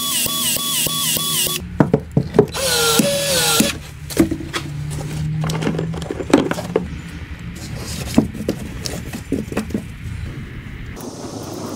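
A cordless PEX expansion tool runs in short repeating pulses, about two and a half a second, as it expands the end of the PEX pipe, and stops about a second and a half in. A second short run follows around three seconds in, then scattered clicks and knocks as the pipe is handled and pushed onto its fitting.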